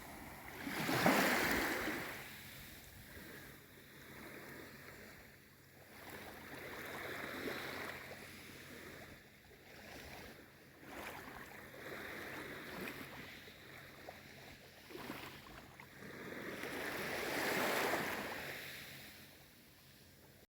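Gentle waves on a calm sea washing in and drawing back in slow swells of hiss, the largest about a second in and another near the end.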